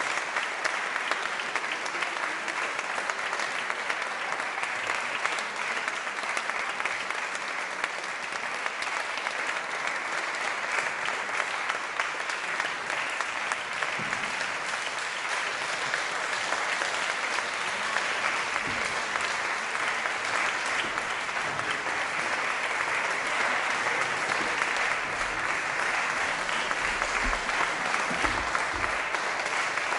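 Opera audience applauding steadily in a sustained ovation, with a few low thumps near the end.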